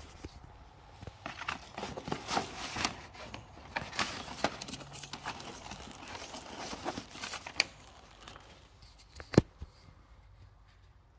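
Irregular crunching and crackling of debris, with one sharp knock about nine seconds in.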